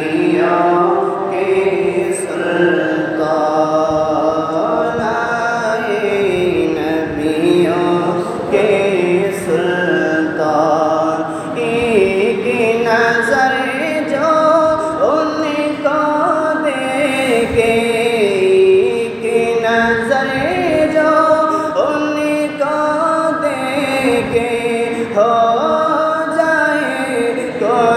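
A man's voice singing a naat, an Islamic devotional song in praise of the Prophet, in long held notes that bend and glide up and down.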